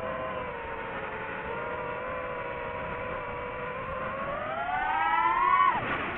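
DJI FPV drone's propeller motors whining at a steady pitch. About four seconds in the whine rises in pitch and gets louder as the throttle is pushed, then drops sharply near the end as the drone rolls over.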